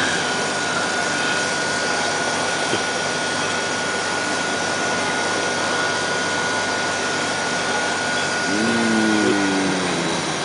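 Mashed-potato vending machine running as it dispenses hot gravy into a cup: a steady whooshing noise with a thin, steady high whine that stops near the end.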